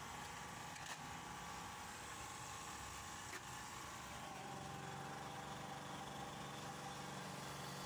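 Photocopier running: a steady mechanical whirring hum with a faint whine, two light clicks about one and three and a half seconds in, and a deeper hum joining about four and a half seconds in.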